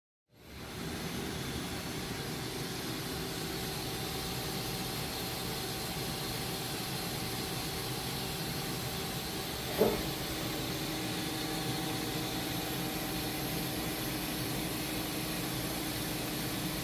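2019 Haas VF-4SS CNC vertical mill running under power: a steady mechanical hum and whine. A short knock comes about ten seconds in, after which the hum's pitch shifts slightly lower.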